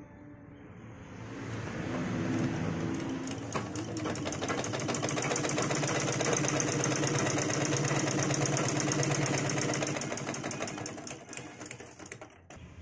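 Merritt sewing machine driven by its electric motor, running up to speed with a loud, fast rattling clatter, then slowing and stopping near the end. The excessive noise comes from thread tangled in the shuttle.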